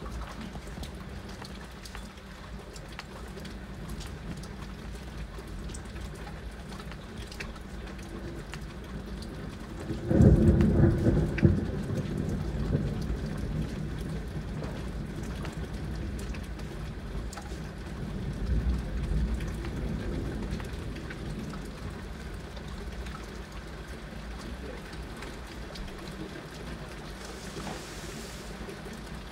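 Heavy rain falling steadily, with a sudden loud thunderclap about ten seconds in that rolls off into rumbling, and a second, weaker rumble of thunder some eight seconds later.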